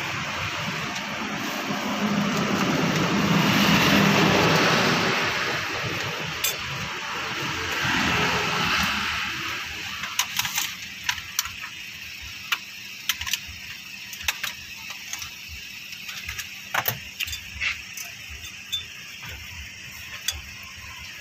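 A passing motor vehicle's noise swells and fades over the first several seconds, then a quieter stretch with scattered sharp clicks and knocks.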